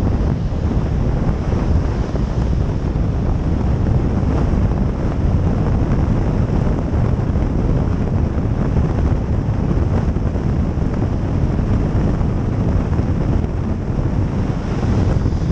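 Steady rush of wind and road noise from a car driving along a wet, slushy motorway, with wind buffeting the microphone; a deep, even rumble with a fainter hiss above it.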